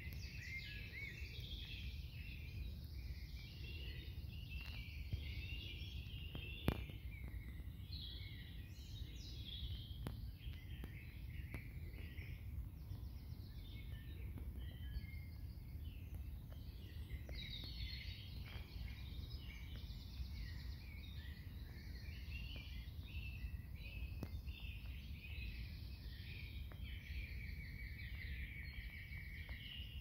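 Chorus of several songbirds singing at once, with overlapping phrases and a rapid trill near the end, over a steady low rumble. A single sharp click about seven seconds in.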